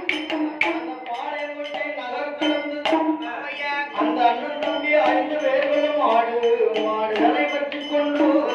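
Villupattu performance: a male lead singer chants the story in a wavering melodic line, accompanied by sharp percussion strikes that come thickly at first and then more sparsely.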